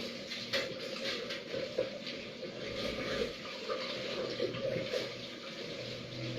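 Water running and splashing steadily, with scattered small clicks and knocks.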